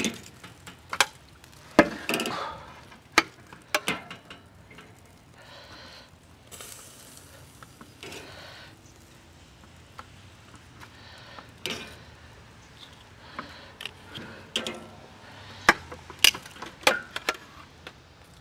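Metal tongs clacking against a charcoal kettle grill's wire grate and the rim of a metal pan as grilled chicken pieces are picked up and dropped into the pan: irregular sharp clacks, several of them loud, scattered across the whole stretch.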